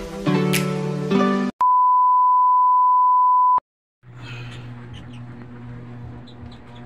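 The end of an intro music jingle, then a steady, high, single-pitched beep about two seconds long that cuts off abruptly. After a brief silence comes fainter room noise with a low hum and a few small ticks.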